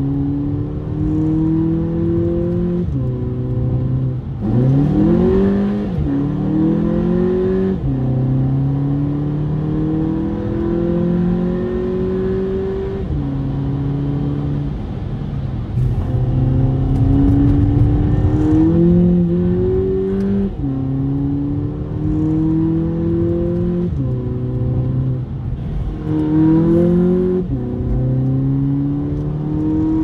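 Volkswagen Polo GTI's 2.0 TSI turbocharged four-cylinder engine heard from inside the cabin, pulling hard through the gears. Its pitch climbs in each gear and drops back at each of several gear changes, with one short, steep rev climb a few seconds in.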